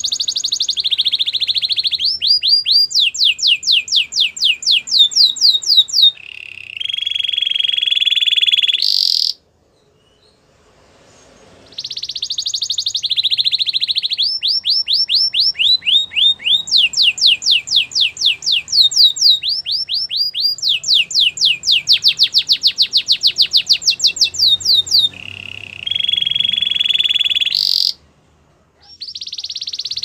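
Domestic canary singing in long phrases of fast trills of falling whistled notes, alternating with buzzy rolls. It pauses for a couple of seconds about a third of the way in, and a new phrase starts near the end.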